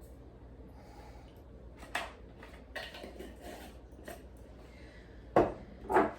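Kitchen handling sounds while spices go on the chicken: a few light taps and clicks, then two louder knocks near the end, like spice containers being shaken and set down on the counter.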